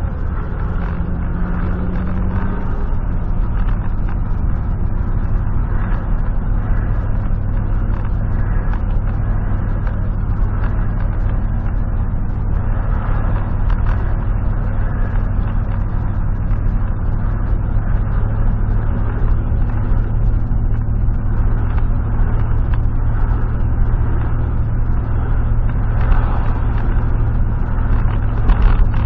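A 1996 GMC pickup's V8 engine running steadily on the move, with road and tyre noise: a steady low drone that swells a little near the end.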